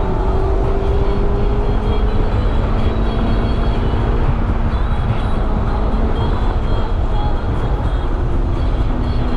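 Mazda MX-5 (ND2) on the move, with a steady, loud rumble of road, tyre and engine noise.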